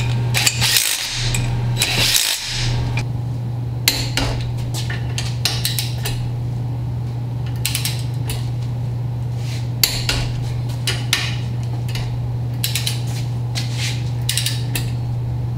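A torque wrench ratchets and clicks in short, irregular strokes as the ring gear bolts on a Dana 44 carrier are torqued to spec. A cordless drill-driver runs briefly in the first couple of seconds, and a steady low hum sits underneath throughout.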